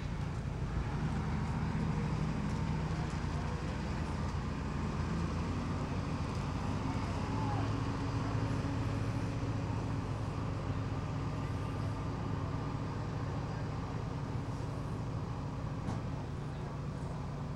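Forklift engine running steadily.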